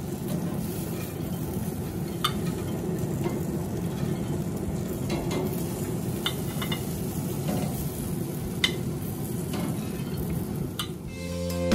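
Peach halves sizzling on a running gas grill, a steady hiss, while metal tongs click now and then against the grates and a ceramic pie dish as the halves are lifted off. Music comes in right at the end.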